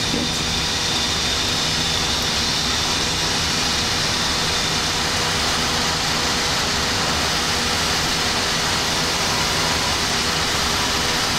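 Steady flight-deck noise of a Boeing 737-700 in its climb after takeoff: an even rush of airflow and jet engine noise at a constant level, with a faint steady hum beneath.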